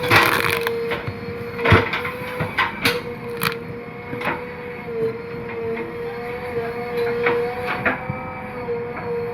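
JCB 3DX backhoe loader digging: its diesel engine and hydraulics run with a steady tone under irregular sharp cracks and knocks from the bucket working the soil and stones, the loudest knock about two seconds in.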